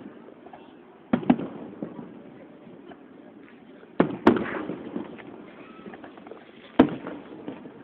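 Aerial fireworks shells bursting: five loud booms in three groups, a quick double, another double about three seconds later, then a single. Each boom rolls away over a second or so.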